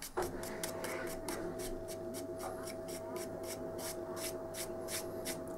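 Stiff flat paintbrush dry-brushing across the ridged plastic of a yoghurt pot, a short scratchy stroke about three to four times a second. A steady hum comes in just after the start.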